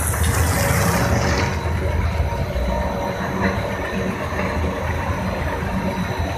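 Snack-puffing extruder line running: a steady machine drone and rumble with faint steady whines, and a hiss that fades out about a second in.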